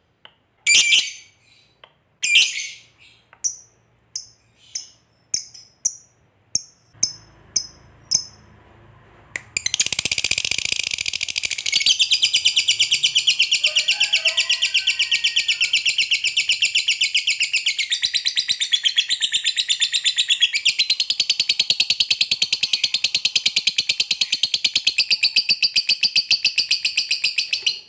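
Lovebird calling: a string of short, sharp, high-pitched chirps for the first nine seconds or so, then one long unbroken rapid chattering trill that begins about a third of the way in and keeps going for some eighteen seconds. The long trill is the 'ngekek panjang' that keepers prize and breed for.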